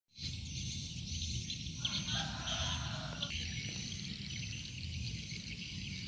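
A flock of edible-nest swiftlets twittering as they feed overhead: a dense, high chatter of short chirps, with a patch of lower chirps about two seconds in, over a low rumble.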